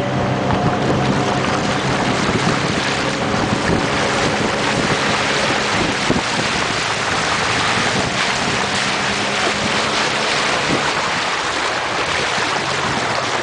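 Shallow river water rushing and splashing over rocks and along the side of a moving boat, a steady loud wash with wind buffeting the microphone. A low steady hum fades out in the first couple of seconds.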